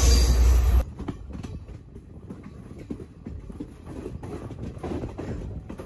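Wind buffeting the microphone, cut off about a second in; then a moving passenger train, its wheels rumbling and clicking over the rail joints, heard from an open carriage door.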